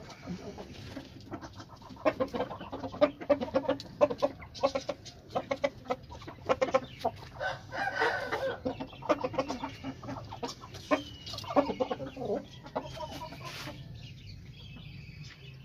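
Chickens clucking in a run of short calls, with one louder, longer call about eight seconds in.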